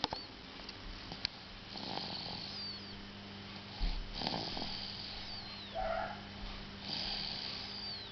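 Snoring: a breathy snore swells every two to three seconds, three in all, over a faint steady hum.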